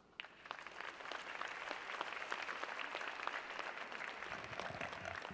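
Audience applauding, starting just after the opening and dying down near the end.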